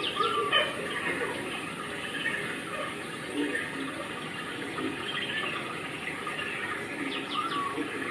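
Indistinct background chatter of onlookers over a steady rushing noise, with a few short high calls.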